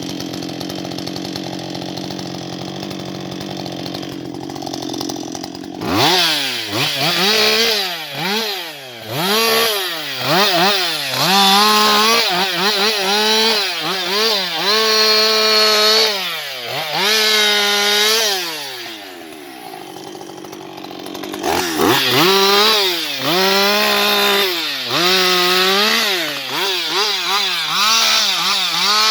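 Husqvarna 560XP two-stroke chainsaw running steadily at low speed, then revved up and down again and again, dropping back briefly near the middle, as it cuts into wood.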